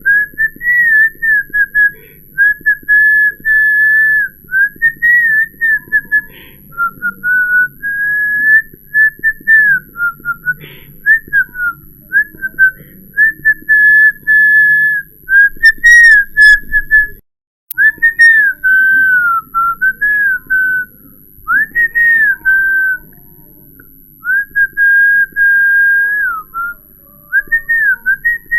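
A person whistling a wandering run of short held notes and slides in one high pitch range, broken by frequent brief pauses, with a sudden short dropout about two-thirds of the way through.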